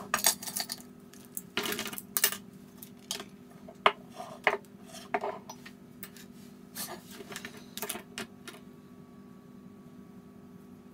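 Watercolour supplies being set down on a wooden desk: a glass of water, a metal paint tin, brushes and a ceramic palette plate, giving irregular clinks and knocks. They stop about eight and a half seconds in, leaving a faint steady hum.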